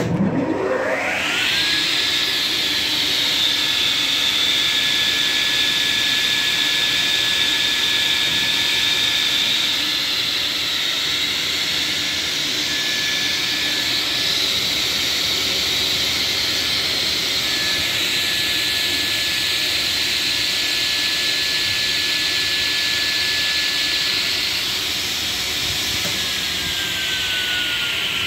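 Kölle K45 cast-iron table saw, with its 4 kW motor and 18-inch blade, starting up: a whine climbs quickly to a steady pitch over a loud rush of air from the spinning blade, then holds steady, and near the end the whine begins to fall in pitch. The drive belts are audible, and the owner says they are worn and need replacing soon.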